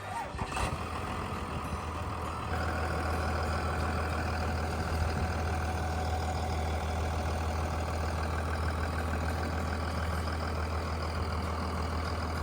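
Old pickup truck's engine running with a steady low hum. A single knock sounds about half a second in, and the engine gets louder about two and a half seconds in, then holds steady as the truck gets under way.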